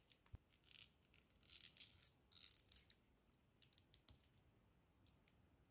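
Faint handling noise from a glass perfume bottle being turned in the hands: scattered light clicks and short scratchy rustles, the loudest about two and a half seconds in, dying away to near silence after about four seconds.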